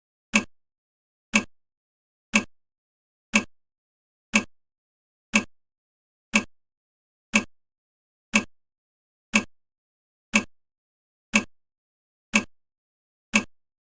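Countdown timer ticking: one short, sharp tick every second, perfectly even.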